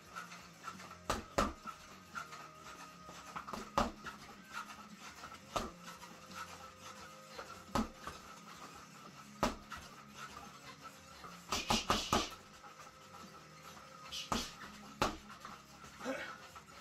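Boxing gloves striking a homemade spring-mounted reflex bag: a dozen or so sharp thumps at an uneven pace, a few of them close together near the middle, with heavy breathing between strikes.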